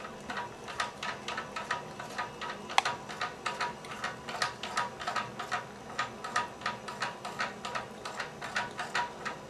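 A cat lapping water from a bathtub faucet spout with its tongue: a quick, even run of wet licks, about three or four a second, with one sharper click about three seconds in.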